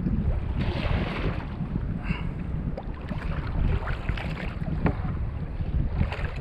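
Wind buffeting the microphone, with choppy sea water lapping and splashing against a kayak's hull; a brief louder rush of hiss about a second in.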